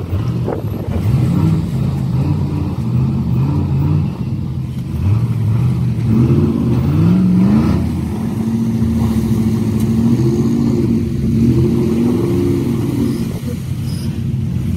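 Pickup truck engines revving up and down in repeated rising sweeps as the trucks strain in deep mud during a tow-strap recovery.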